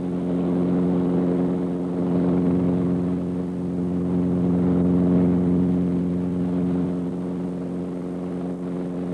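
Cabin noise of a Lockheed 286 rigid-rotor helicopter in fast low-level flight at about 130 knots: a steady drone of rotor and engine, several fixed pitches over a rush of airflow, swelling a little after the first second.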